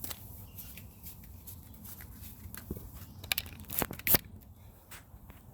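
Rustling and crinkling handling noises with several sharp clicks, the loudest a little after the middle; no engine running.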